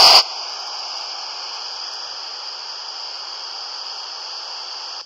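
Steady static hiss from a Kenwood TH-D72 handheld FM receiver tuned to the ISS downlink on 145.800 MHz, with no voice on the channel. It sets in just as the astronaut's transmission breaks off and stops abruptly just before the end.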